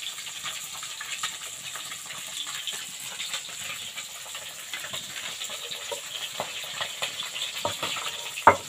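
Stone roller (nora) scraping and knocking on a stone sil-nora slab as cashews and melon seeds are crushed, with a few sharp knocks near the end. Fish sizzles in hot oil behind it, a steady crackling hiss.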